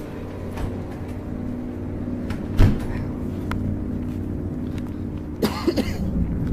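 A low, steady droning hum made of several held tones, the unexplained 'strange sky sound' people have been recording, with a sharp knock about two and a half seconds in and a brief clattering rustle near the end.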